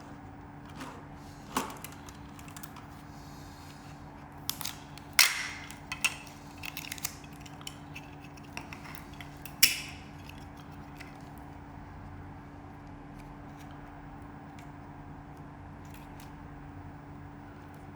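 Small clicks and taps of packaging and plastic parts being handled, with a cluster about five to six seconds in and a sharp click near ten seconds, over a steady low hum.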